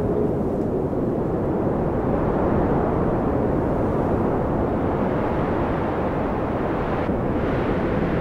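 Steady low, rushing wind noise that holds an even level throughout, with no gusts, clicks or tones.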